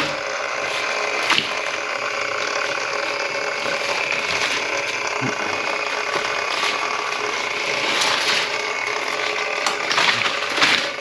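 Drain-cleaning machine running, its cable clattering and ratcheting as it works through the clogged kitchen sink drain.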